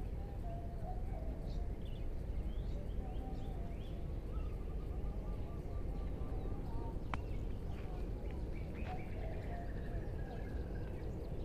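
Birds chirping and calling, including runs of quickly repeated notes, over a steady low outdoor rumble. A single sharp click about seven seconds in.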